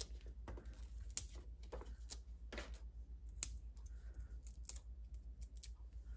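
Small sharp clicks and light paper rustling as foam adhesive dimensionals are peeled from their backing sheet and pressed onto a cardstock label. The loudest clicks come about a second, two seconds and three and a half seconds in.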